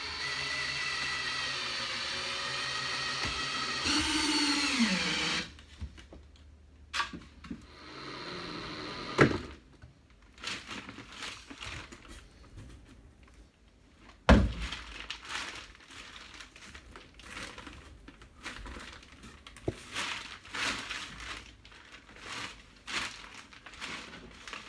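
A power drill drives screws into wood studs: the motor runs steadily for about five seconds, then spins down. It is followed by a shorter run, two sharp knocks against the wood, and scattered handling clicks and rustles.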